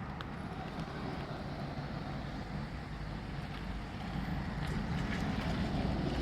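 Distant thunder: a low, continuous rumble that grows louder through the second half.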